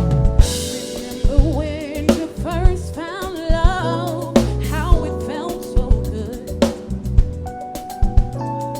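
Live soul band music: a singer's voice with vibrato over a drum kit, bass and sustained keyboard chords, with a cymbal crash about half a second in.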